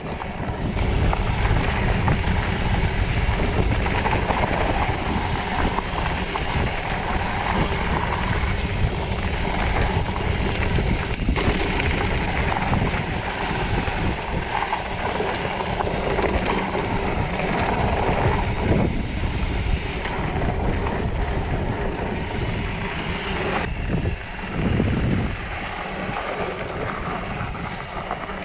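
Wind buffeting an action camera's microphone over the steady rumble and rattle of a rigid 29+ mountain bike's tyres rolling fast down rough dirt singletrack, with many small knocks from the bike jolting over rocks.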